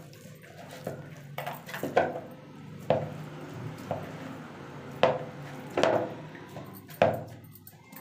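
Hands kneading soft momo dough in a bowl: irregular thumps and squishes as the dough is pressed and pushed against the bowl, roughly once a second.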